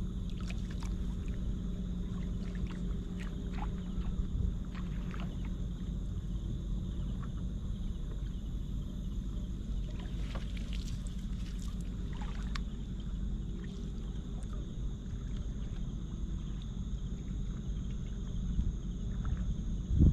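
Shallow seawater sloshing and splashing around a wader's legs and a long-handled scoop net worked through seagrass, with scattered small splashes and clicks over a steady low rumble.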